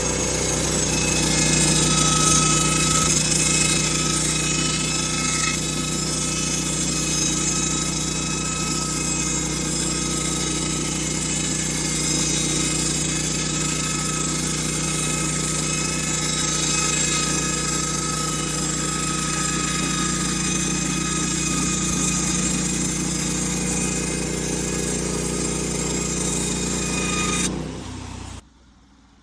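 A motor-driven machine running steadily with several held whining tones, then stopping abruptly near the end.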